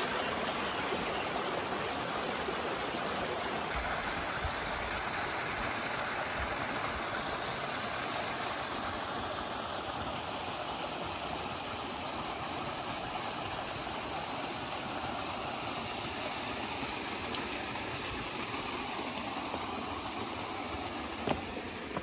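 A rocky creek running steadily over small cascades: an even, unbroken hiss of water. One brief knock near the end.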